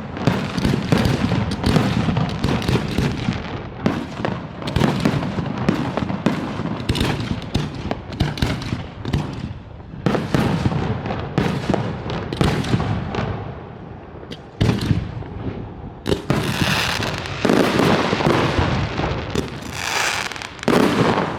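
Fireworks display: a rapid run of aerial shell bursts and bangs, thinning out about halfway through into separate loud bursts, each followed by a long crackling hiss.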